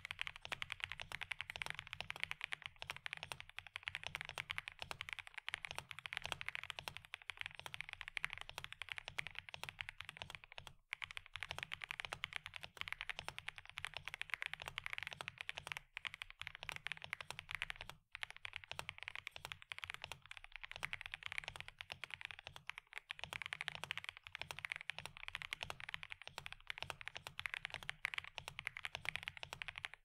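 Fast, continuous typing on an FL-Esports OG87 mechanical keyboard with pre-lubed linear switches and PE foam inside, broken by a few brief pauses. The spacebar is louder than the other keys and rattles a little, a sign of its uneven factory stabilizer lube.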